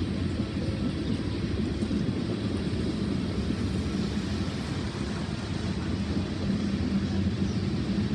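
BNSF freight train's hopper cars rolling past on the rails, a steady low rumble with a faint hum running through it.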